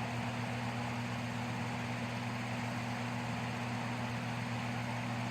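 Steady low electrical hum with an even hiss underneath, unchanging throughout.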